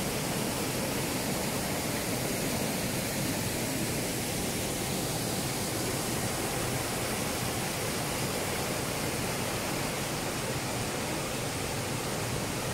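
River water rushing over rocks, a steady even hiss.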